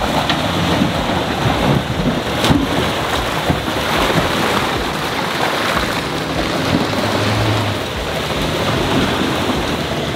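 Toyota Hilux pickup's engine running hard under load as it claws up a muddy slope, its tyres spinning and flinging mud, heard as a loud, continuous rush with a few sharp knocks.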